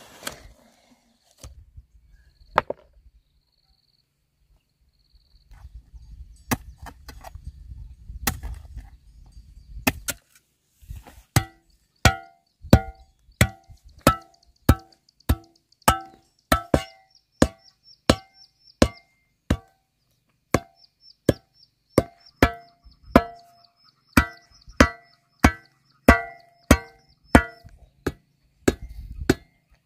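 Steady, evenly spaced chopping blows, about three every two seconds, each with a short ringing tone. They start about eleven seconds in, after a few scattered knocks and some low rumbling handling noise.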